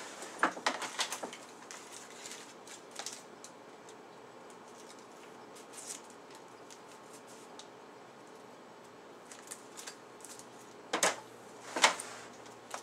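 Small plastic parts bag being handled: crinkling and light clicks at first, faint rustles, then two louder sharp rustles close together near the end.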